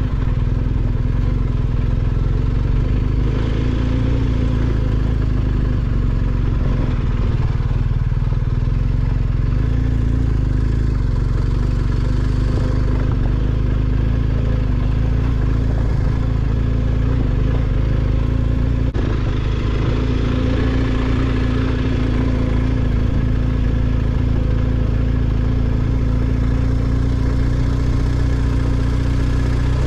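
BMW R1250GS boxer-twin engine running steadily while riding, with a heavy low rumble and no big changes in revs.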